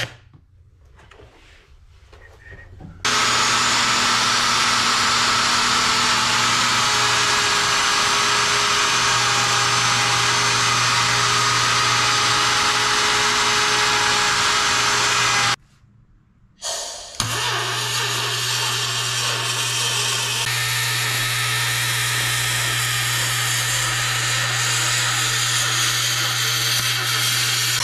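A router runs steadily with a held whine for about twelve seconds while it trims a round metal plate against a bearing bit. It stops abruptly, and after a short pause a TIG welding arc starts up and keeps up a steady buzzing hum with a hiss over it.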